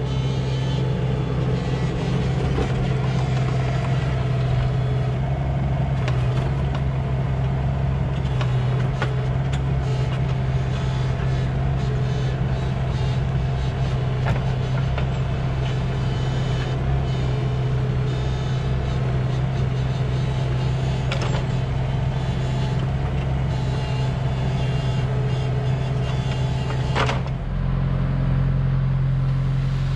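Komatsu PC16 mini excavator's diesel engine running steadily under digging load, with a few short knocks. Near the end a tractor engine takes over as the trailer is tipped.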